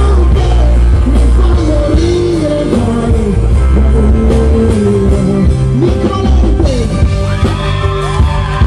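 Live band playing loudly: a male singer singing over electric guitar and keyboards, with heavy bass.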